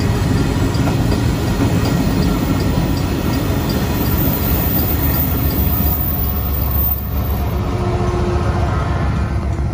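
A long string of BNSF diesel locomotives rolling past at track level with a steady low rumble. It eases slightly about seven seconds in, as the last unit goes by.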